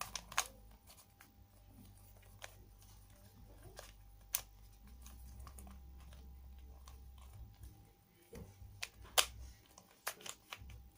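Plastic puzzle cube being twisted by hand: scattered sharp clicks and snaps as its layers are turned, with a few louder snaps about four and nine seconds in.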